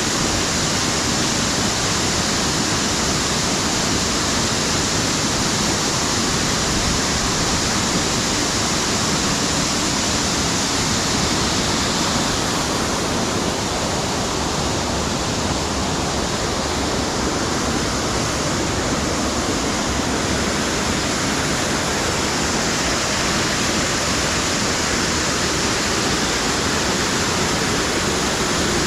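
Waterfall crashing down at close range onto rocks, a loud, steady rush of falling water.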